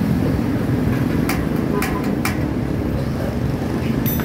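Steady rumble of road traffic. Three quick light metallic clicks come about a second in, and another comes near the end, from bicycle hub and sealed-bearing parts being handled.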